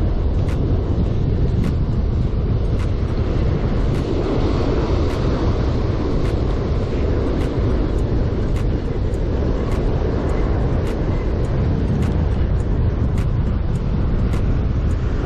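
Strong wind buffeting the microphone with a steady low rumble, over breaking surf, with faint sharp ticks about once or twice a second.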